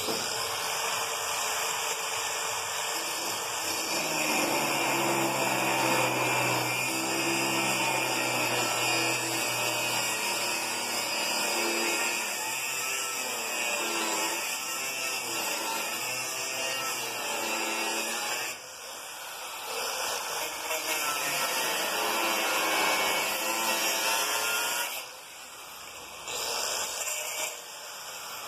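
Angle grinder cutting a fish-mouth notch into the end of a steel tube, its motor note wavering as the disc bites into the metal. It eases off briefly about two-thirds of the way through and again near the end.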